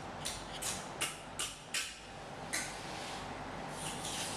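Felt-tip marker squeaking and scratching across cardboard as it draws: a run of short strokes about a third of a second apart, then a longer drawn-out stroke after about two and a half seconds.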